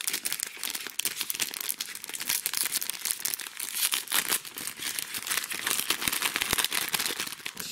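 Metallised foil snack pouch crinkling and tearing as hands pull it open, a dense unbroken crackle.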